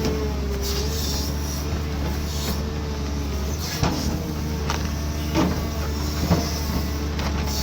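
Cat 320D2 hydraulic excavator working, its diesel engine running steadily under load with a hydraulic whine over it. Several sharp cracks and knocks come through in the second half.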